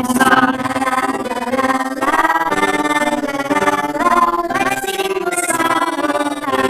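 Children's song music: a steady instrumental backing with a melodic lead whose notes glide up and down, without clear sung words.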